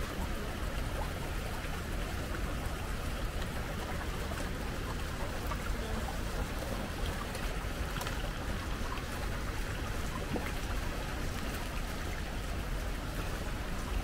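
Steady rushing noise of falling water from the Shifen Waterfall, an even roar with no breaks.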